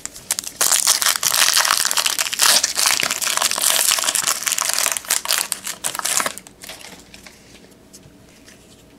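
Trading-card pack wrapper being crinkled and torn open, a dense crackling that starts about half a second in and stops about six seconds in.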